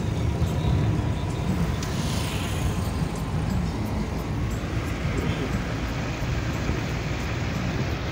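Car driving at speed, a steady engine and road rumble heard from inside the cabin.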